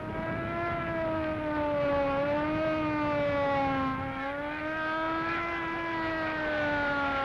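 A siren wailing in one long held tone whose pitch wavers slowly up and down, over a rough rumble of noise.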